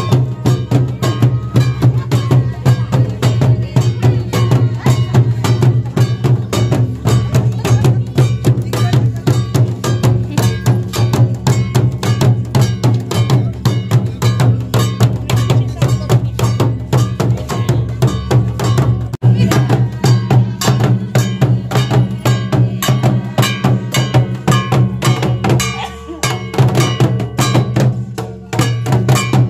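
Loud, fast traditional percussion music for a Santali dong dance: a metallic clanking beat over drums, keeping a steady rhythm, with a brief drop near the end.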